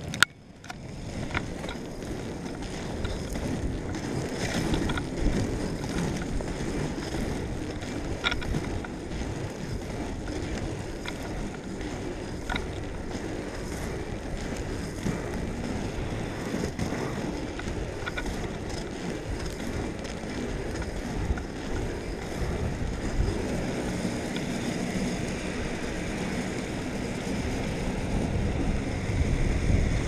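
Inline skate wheels rolling over asphalt, a steady rolling noise with wind buffeting the microphone and a few light clicks. It gets louder near the end.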